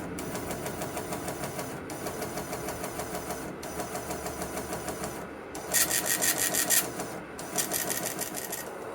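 Weather radio receiver audio: a steady buzzy static, then two loud, harsh bursts of about a second each, a little under a second apart, carrying a steady high tone. The bursts are typical of the SAME digital header that opens a NOAA Weather Radio alert or weekly test.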